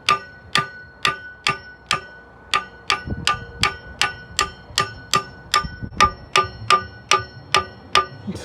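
Hammer striking a steel extension bar with steady, ringing metal-on-metal blows, about two a second, to drive the rocker arm shaft out of a Toyota 2ZZ-GE cylinder head.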